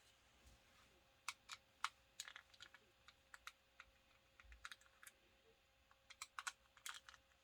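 Faint, irregular small plastic clicks and taps as a battery is fitted into a network cable tester's battery compartment.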